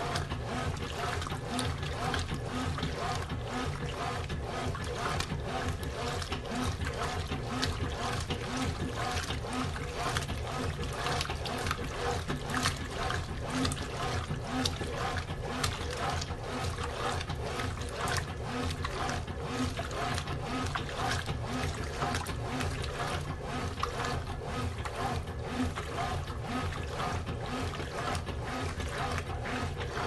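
Brastemp Ative BWL11 top-loading washing machine in its wash cycle: the agitator churns the clothes back and forth in soapy water, a steady sloshing with an even, repeating rhythm.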